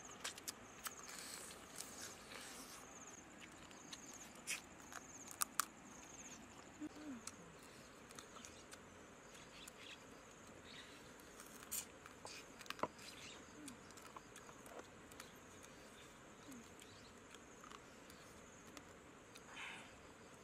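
Faint scattered clicks and taps of eating and of hands and a spoon working in a wooden bowl, over a quiet outdoor background. An insect's high pulsing trill runs for the first few seconds, then stops.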